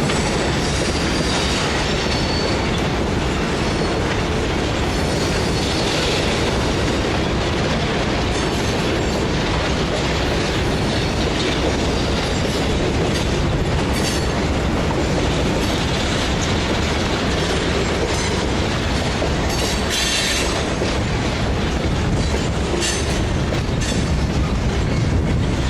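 Train running on rails: a steady, loud rumble, with brief high-pitched sounds now and then.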